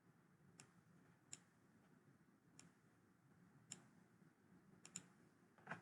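Near silence broken by about seven faint, irregular clicks of a computer mouse and keyboard being worked.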